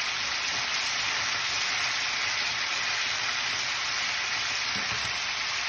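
Flour-coated chicken pieces deep-frying in hot oil: a steady, even sizzle.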